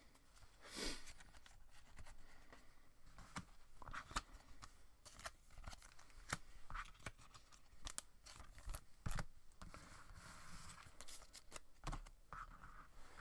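Trading cards and thin clear plastic card sleeves being handled: a scatter of faint plastic rustles and crinkles with light taps of cards.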